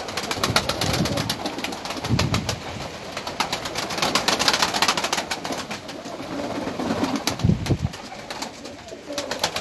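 A loft full of domestic pigeons: rapid overlapping taps and wing flaps, with a low coo about two seconds in and another near the end.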